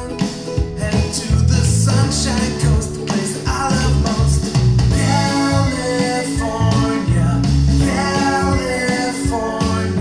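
Upbeat rock song with singing, guitar, bass and drums, played back through a pair of small two-way stereo speakers with Dayton Audio ND90 aluminium-cone drivers for a sound test.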